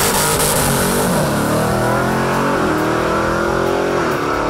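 Supercharged 6.2-litre Hellcat Hemi V8 in a 1968 Dodge Charger at full throttle on a drag-strip pass. The engine note climbs, then drops twice as the eight-speed TorqueFlite automatic upshifts.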